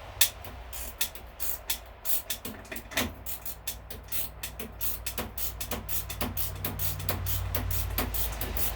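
Ratchet wrench clicking as bolts are worked loose: a few separate clicks, then a quicker, fairly even run of about four to five clicks a second, over a steady low hum.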